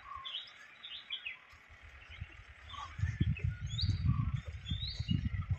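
Birds chirping in short, high calls. From about three seconds in, a louder, irregular low rumble sets in under them.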